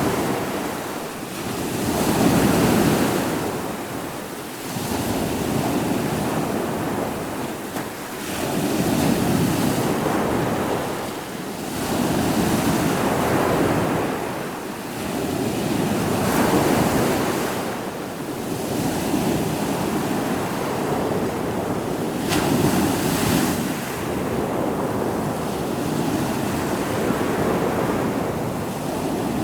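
Ocean waves breaking and washing onto the shore, the surf swelling and ebbing every few seconds, with wind on the microphone.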